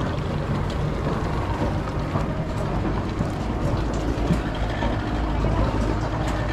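A boat's motor running steadily as it heads out across the lake, a low rumble mixed with wind and water noise.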